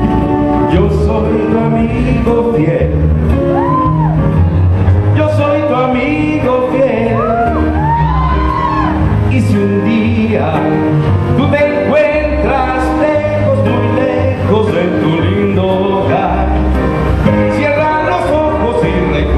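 A man singing into a microphone over a loud recorded backing track with a steady beat.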